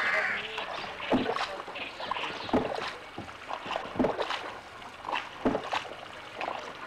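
Paddle strokes of a small boat moving through water, a sharp dip and pull about every second and a half, with water swishing between strokes.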